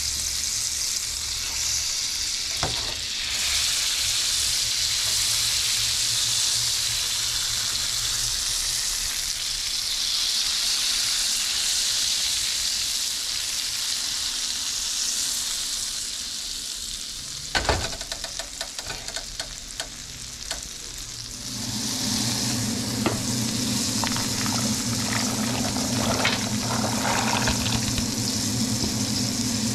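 Flour-dredged flounder fillets frying in olive oil and butter in a pan, a steady sizzle. A sharp knock comes about two-thirds of the way through. Near the end a pot of water at a rolling boil bubbles in.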